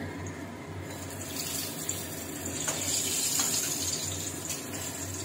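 Eggplant slices sizzling as they shallow-fry in hot oil in a karahi, a steady hiss that grows brighter about a second in.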